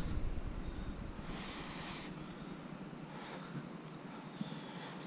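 Crickets chirping steadily in the background, a fast pulsing high trill, with a few faint soft noises of someone chewing a mouthful of food.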